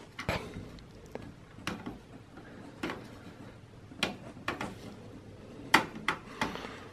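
Irregular sharp clicks and light knocks, about eight in all, from a gloved hand handling the processor and its socket on a desktop PC motherboard inside the metal case as the CPU is released and lifted out. The loudest click comes about two-thirds of the way in.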